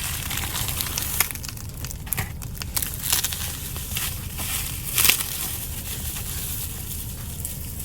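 Packaging crinkling and crackling as a mailed package is opened by hand, with a few sharper crackles about one, three and five seconds in.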